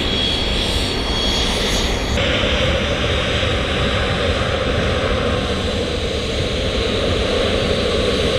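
Jet airliner engines running loud and steady, a dense rush of jet noise. A high thin whine rides over it for about the first two seconds, then the sound changes abruptly to a fuller rush without the whine.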